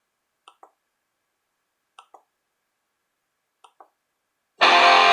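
Three faint double clicks, about a second and a half apart, then about four and a half seconds in a loud strummed guitar chord rings for about a second.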